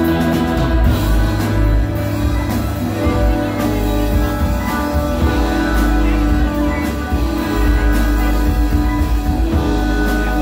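Rock trio playing live: electric guitar and electric bass over a drum kit, with steady cymbal hits.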